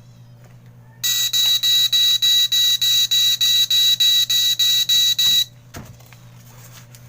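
A battery-powered smoke alarm's piezo sounder beeping rapidly and high-pitched, about three to four beeps a second for roughly four seconds, then cutting off suddenly, followed by a soft knock.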